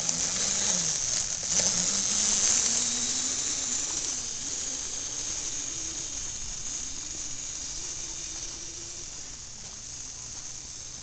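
Razor electric dirt bike's motor whining, its pitch wavering up and down with the throttle over a steady hiss, growing fainter as the bike rides away.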